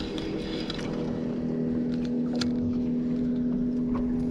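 A boat's motor running steadily with an even hum, its main pitch shifting slightly about a second in. A few light clicks sound over it.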